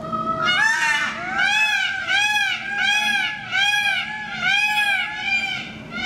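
Indian peafowl giving a loud series of about seven calls in quick succession, each call rising then falling in pitch, at about a call and a half per second.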